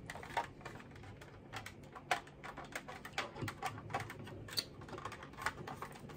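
Small, irregular hard-plastic clicks and taps as an action figure is handled and fitted into an opened plastic toy shark.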